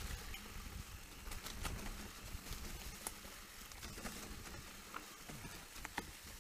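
Specialized Turbo Levo electric mountain bike riding down a narrow dirt forest trail: a steady rush of tyre and trail noise with scattered sharp clicks and rattles.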